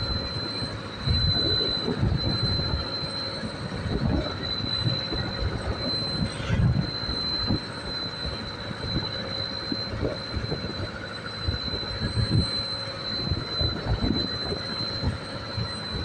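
Fishing launch under way in rough sea: its engine running steadily with a constant high whine, over waves splashing against the hull and irregular low gusts of wind buffeting the microphone.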